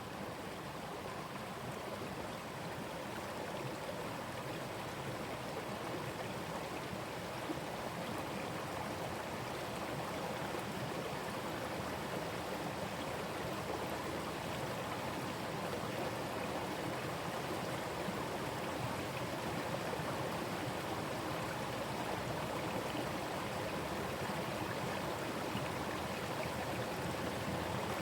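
Forest stream running over rocks, a steady rushing and burbling of water.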